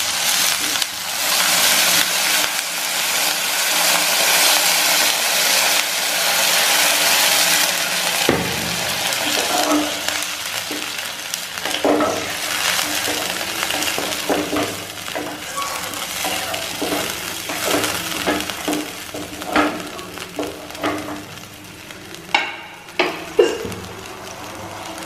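Water poured into a hot non-stick kadai of fried potatoes and eggplant, hissing and sizzling loudly for about eight seconds. Then a wooden spatula stirs and knocks against the pan while a quieter sizzle goes on.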